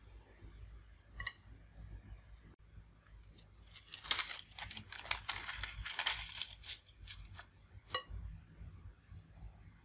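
Parchment paper crinkling and rustling as a circle of it is fitted into a metal round cake pan, a dense crackle lasting a few seconds in the middle and the loudest sound here. A short ringing clink comes about a second in, and another near the end.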